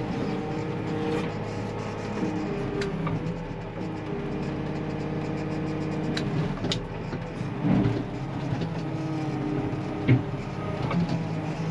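Telehandler diesel engine running as it works a dung bucket scraping up muck, its note rising and falling a few times, with a few sharp knocks.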